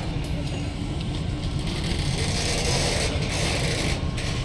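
Ballast work train rolling slowly: a steady low rumble with a mechanical rattle, and a hiss rising from about two seconds in and fading near the end.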